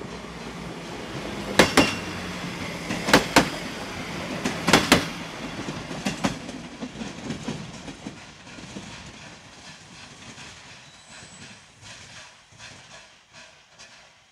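Diesel railcar passing close and pulling away, its wheels clacking in loud pairs over the rail joints in the first six seconds, then in softer, evenly spaced clacks that fade as it moves off.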